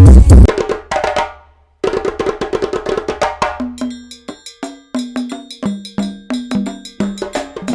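Music played through a large outdoor sound system during a sound check: a heavy-bass electronic track cuts off about half a second in, and after a brief gap a percussion-led track with sharp, wood-block-like clicks and short pitched notes starts.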